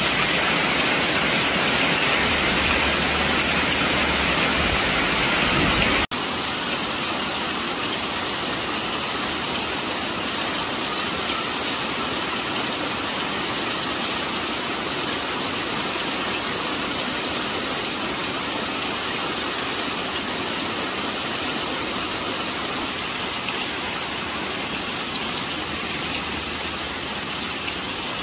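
Heavy rain pouring and splashing into a muddy puddle, a steady hiss. About six seconds in it cuts abruptly to a slightly softer, thinner rain hiss.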